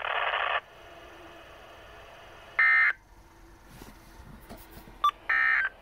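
Weather radio speaker giving two short bursts of screechy EAS digital data tones a few seconds apart, the end-of-message code after the weekly test. A steady hiss cuts off about half a second in, and a sharp click comes just before the second burst.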